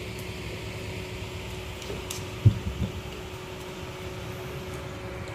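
A steady low hum with a faint even tone, and a single loud thump about two and a half seconds in, followed by a couple of softer knocks.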